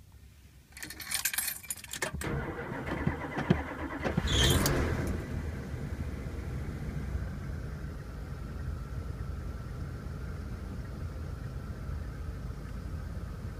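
Keys jangling in the ignition as the key is turned, the starter cranks, and the old van's engine catches about four seconds in with a brief rise in revs, then settles into a steady idle. It is a cold start: the temperature gauge reads cold.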